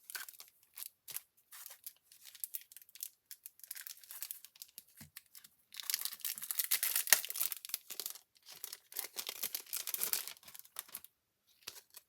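Packaging being crinkled and torn open by hand: scattered crackles, then a longer spell of continuous crinkling from about six to eleven seconds in.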